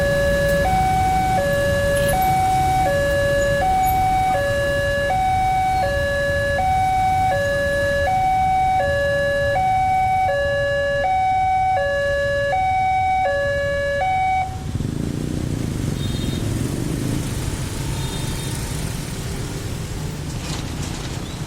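Railway level-crossing warning siren sounding a two-tone high–low alarm, about one full cycle every one and a half seconds, which cuts off suddenly about 14 seconds in. A low rumble continues after it stops.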